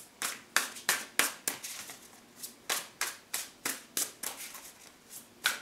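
A deck of tarot cards being shuffled by hand: a run of short, sharp card slaps, about three a second.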